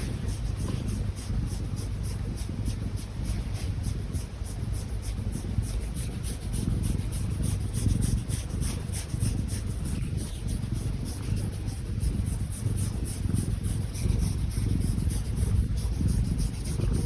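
A sleeping house cat snoring with a high-pitched snore.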